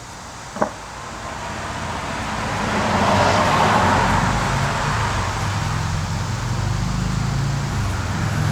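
A motor vehicle running nearby, its sound swelling over the first few seconds into a steady low hum that carries on, with one light click about half a second in.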